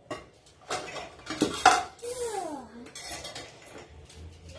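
Dishes and cutlery clinking and clattering as they are handled, in several separate knocks, with a short falling tone about halfway through.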